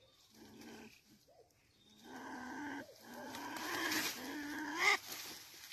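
A small wild animal (a chồn) caught in a buried trap, crying. It gives a short cry near the start, another about two seconds in, then a longer run of cries that grows louder toward the end.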